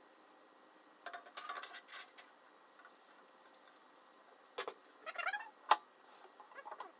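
Handling noise on an Anycubic Photon resin 3D printer: clicks, rattles and light scraping of plastic parts as it is worked on and its tinted cover is fitted over it. There are clusters about a second in and again in the second half, with the sharpest knock just before the end.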